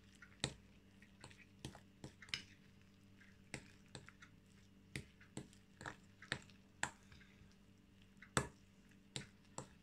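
A fork stirring soft cottage cheese, butter and dill in a glass bowl, giving faint, irregular clicks as it knocks against the glass, roughly one or two a second.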